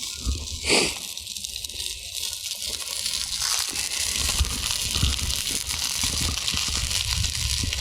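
Glazed ribs sizzling and crackling as they sear in a cast iron pan, a steady hiss with one brief louder burst about a second in.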